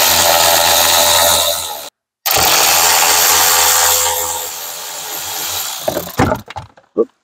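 Cordless ratchet running in two spurts of about two and four seconds, backing out the bolts that hold a pickup's upper glove box. The second spurt trails off. A few knocks near the end come from the plastic glove box being pulled out of the dash.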